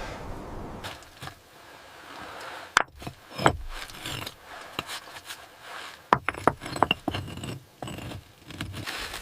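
Hand work with tools and materials: irregular knocks, clicks and scrapes, with two sharp knocks about three seconds in and a quick run of clicks a few seconds later.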